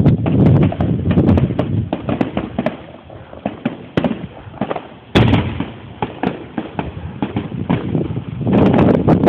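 Fireworks going off: a rapid string of crackling pops, a louder single bang about five seconds in, then dense crackling again near the end.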